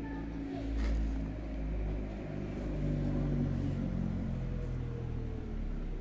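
A motor vehicle's engine humming low and steady, its pitch slowly falling from about two seconds in as it passes.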